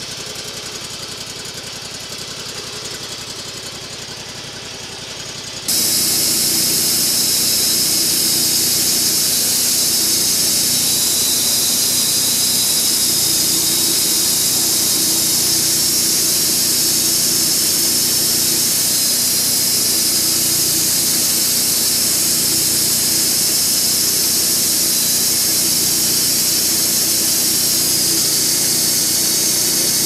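Portable bandsaw sawmill's gas engine idling, then about six seconds in it suddenly throttles up and drives the band blade, running steady and loud with a strong high hiss from the blade.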